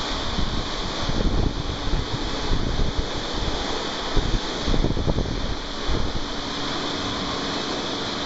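Blow dryer running steadily with a rushing hiss of air, with irregular low rumbles of air buffeting the microphone for a few seconds in the middle.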